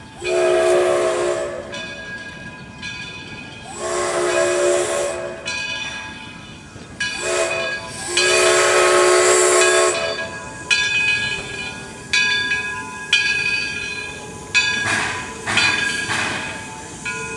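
Steam locomotive whistle sounding the grade-crossing signal: two long blasts, a short one and a final long one, a chord of several tones with steam hiss. After the whistle the locomotive's bell rings with strikes about once a second, with a couple of short hisses of steam near the end.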